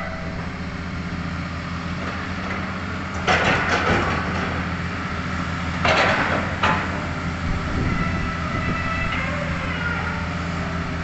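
Hitachi Zaxis-5G crawler excavator's diesel engine running steadily under working load, with two loud noisy bursts, about three and six seconds in, of the bucket scraping through soil and rubble.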